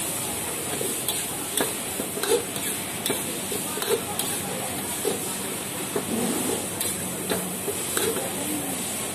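Metal spatula and ladle scraping and knocking against a steel wok as noodles are stir-fried, with sharp irregular clinks one or two a second over a steady sizzle.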